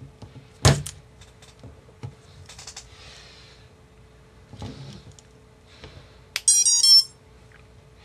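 A handful of clicks and one knock as the XT60 battery connector is handled and pushed together, then near the end a quick run of startup beeps played through the brushless motors by the quad's Holybro Tekko32 4-in-1 ESC. These three beeps are the sign that the new build powered up correctly.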